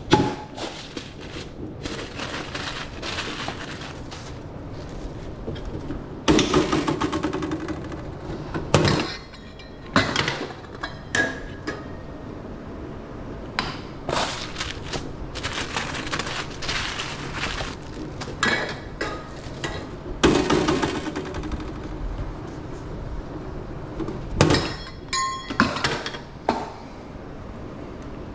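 Hot dog preparation at a vendor's cart: repeated clinks and knocks of utensils and lids, with a few noisy stretches of a second or two, over a steady background.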